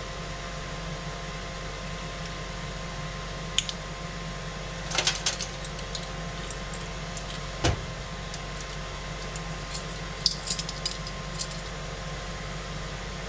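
Plastic measuring spoons on a ring clicking and rattling, with the click of a honey squeeze bottle's cap, in scattered bursts over a steady background hum; a single duller knock falls about midway.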